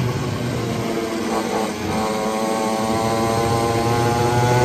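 Xpro 50cc two-stroke mini pit bike engine buzzing at steady revs. Its note drops away briefly about a second in, then comes back steady.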